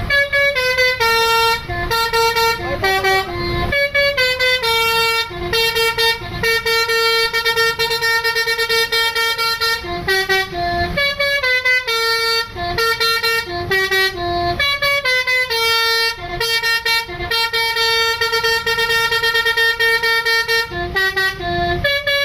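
A bus's basuri multi-tone horn playing a tune: a long run of short, loud horn notes stepping up and down in pitch.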